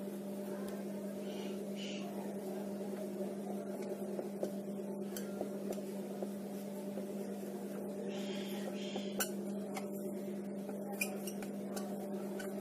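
A whiteboard being wiped with a cloth and then written on with a marker: faint scratching strokes and a few light taps, over a steady low hum.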